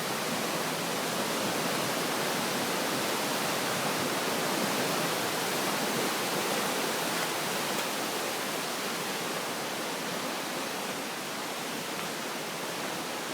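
Steady rushing of the Bronx River's floodwater, swollen after Hurricane Irene.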